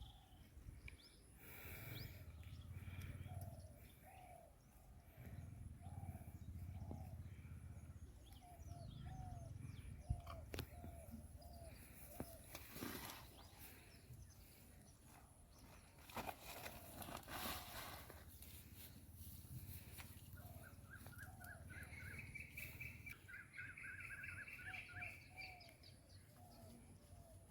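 Birds calling outdoors, faint: one bird repeats a short curved note over and over, and about two-thirds of the way in another gives a rapid trill for a few seconds. A low rumble comes and goes underneath, with a few sharp clicks in the middle.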